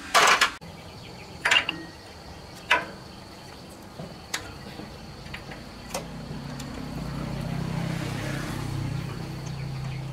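Several sharp clinks and knocks of a wrench and small diesel-engine parts being handled over a metal bowl, the loudest at the very start, then about one every second or so. A low hum swells up over the second half, and a steady high insect-like whine runs underneath.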